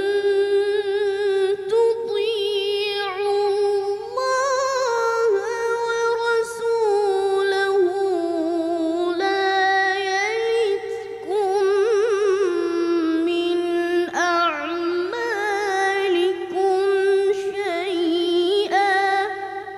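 A boy reciting the Quran in melodic tilawah style, holding long, high-pitched notes with wavering ornaments between short breaks for breath.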